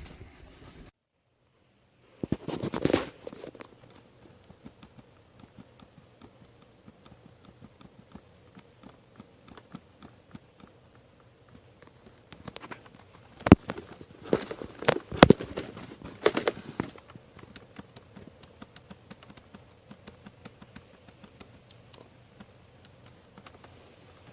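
Objects being handled: a short rustle a couple of seconds in, then scattered sharp clicks and knocks, several louder ones bunched together around the middle.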